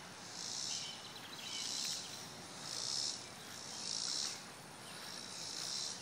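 High-pitched insect buzzing that swells and fades about once a second.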